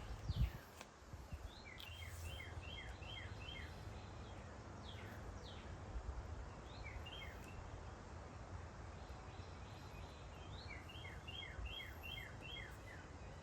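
A small bird chirping in quick runs of short, high, falling notes, about four or five a second: one run a couple of seconds in, a brief pair midway, and another run near the end, over a steady low outdoor background noise.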